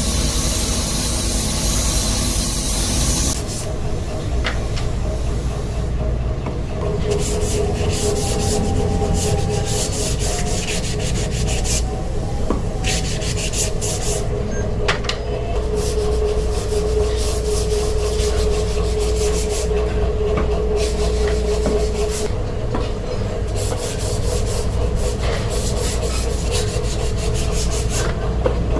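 Wooden loom shuttle being sanded by hand in clusters of quick strokes, over a steady machine hum and low workshop rumble.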